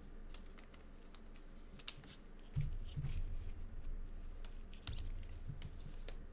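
Trading cards handled with nitrile-gloved hands: light clicks, taps and rustles as the cards are shuffled through, with a few soft knocks about two and a half, three and five seconds in.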